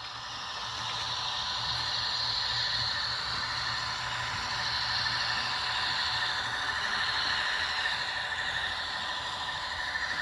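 HO scale model diesel locomotive running with its freight train on the layout: a steady whirring hum with a higher wavering hiss, without pause.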